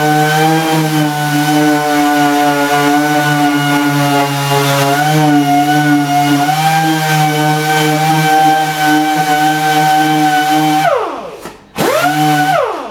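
Orbital sander running at a steady pitch, sanding filler on a plastic bumper. Near the end it winds down, is briefly run up again, and winds down once more.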